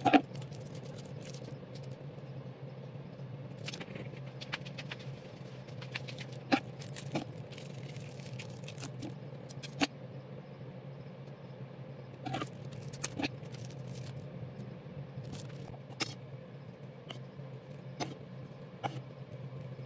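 Scattered short clicks and light scrapes of a cake spatula and scraper being handled and knocked against the cake turntable and utensils while buttercream is spread, over a steady low hum.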